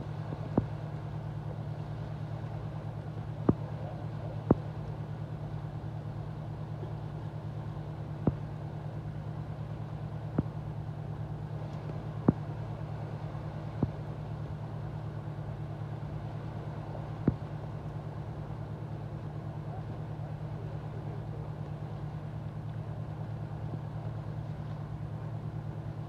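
A steady low engine hum, like an idling vehicle, with short sharp clicks now and then during the first two-thirds.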